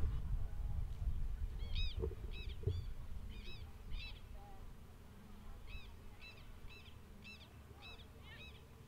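A bird calling over and over in short, harsh notes, about two a second, starting about two seconds in, over a low rumble that fades away. Two dull thumps sound early on.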